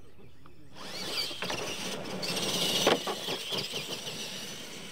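Radio-controlled monster trucks of the Tamiya Clod Buster type taking off from the start line on dirt, their electric motors and gears rising to a high whine. There is a sharp thump about three seconds in.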